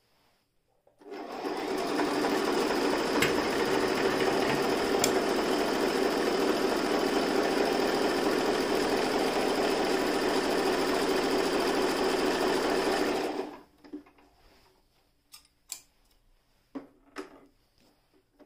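Toyota Jeans JS021 electric sewing machine stitching through fabric at a steady speed. It starts about a second in, runs evenly for about twelve seconds and stops, followed by a few light clicks and knocks.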